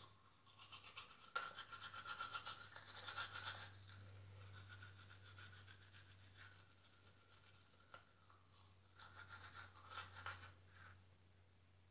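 Battery-powered toothbrush brushing teeth: faint rapid scrubbing with a thin whine, strongest in the first few seconds and again near the end.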